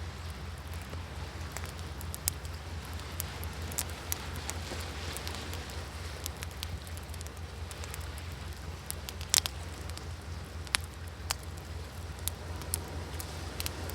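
Wood fire crackling, with scattered sharp pops (the loudest about nine seconds in), over a steady low rumble of sea waves.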